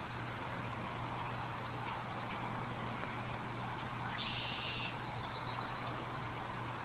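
Steady background rumble and hiss with a constant low hum. About four seconds in, a short high-pitched tone lasts under a second.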